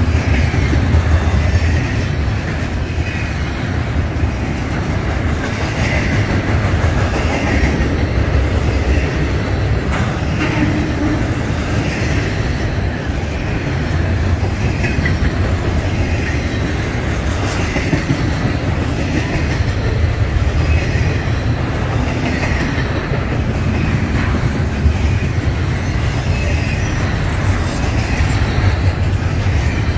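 Double-stack intermodal freight train rolling past at close range: the container well cars make a steady low rumble, with a recurring clatter of wheels every second or two.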